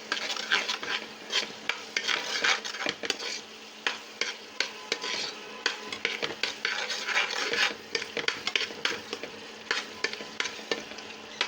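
A metal spoon stirring and scraping in a cooking pot, with many quick clicks against the pot, over the sizzle of oil and spices frying.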